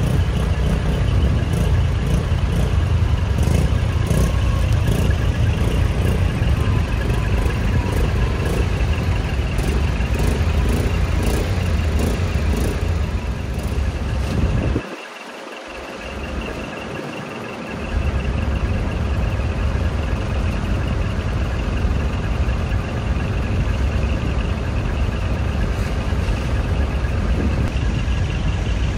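Large diesel truck engine idling with a manifold-split (mani-wari) exhaust, a deep, steady rumble. It drops away for a few seconds about halfway through, then returns.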